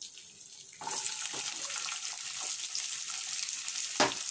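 Chopped onions dropped into hot oil in a kadai, sizzling hard from about a second in, after a faint quiet start. A single sharp knock near the end.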